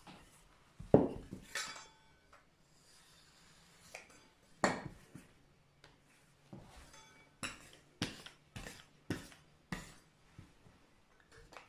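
Sharp knocks and taps of kitchen tools on a worktop as dough is cut into pieces on a silicone mat. There is one loud knock about a second in, scattered taps after it, and a run of taps about twice a second near the end.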